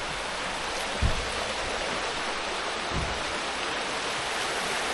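Rocky stream rushing fast over stones, a steady rush of water. Two brief low thumps, about a second in and again near three seconds.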